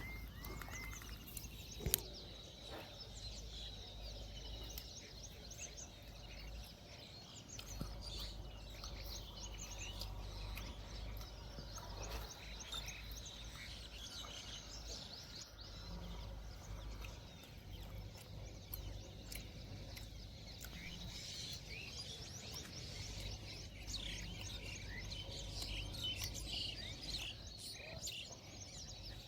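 Small birds chirping and twittering over a low, steady background noise, with one brief click about two seconds in.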